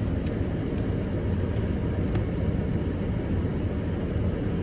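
Steady low rumbling noise inside a car's cabin: the heater blower running on defrost.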